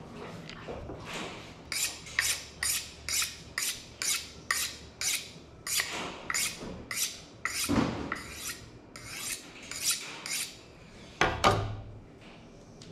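Kitchen knife being honed on a sharpening steel: quick metal-on-metal scraping strokes, about three a second, with a louder clang near the end.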